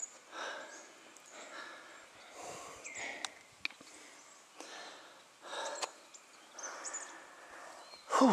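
A person breathing hard after a steep uphill climb, with short noisy puffs in and out about once a second and a few faint clicks. Right at the end comes a loud sighing exhale that drops in pitch.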